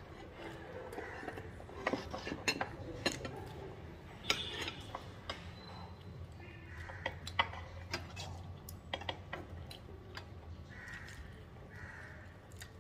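Knives and forks clinking and tapping on plates during a meal: a scattering of short, irregular clinks.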